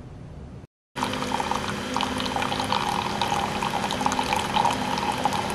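Keurig single-serve coffee maker dispensing brewed coffee into a ceramic mug: a steady stream of liquid with uneven splashes. It comes in loudly about a second in, after a brief silence.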